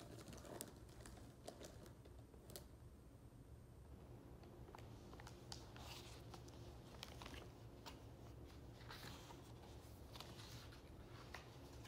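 Faint rustling and crinkling of a foil snack-chip bag being rummaged in, with scattered small clicks and ticks.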